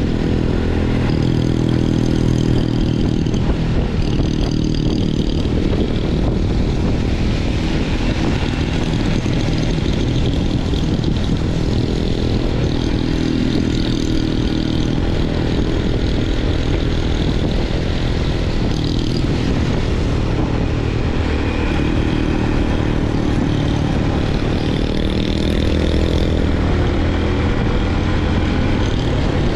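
Motorcycle engine running at riding speed, its note rising and falling with the throttle, under steady wind and road noise.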